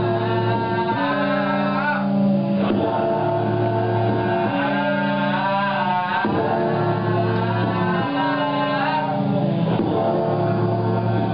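Music: a voice singing over sustained chords that change about every two seconds.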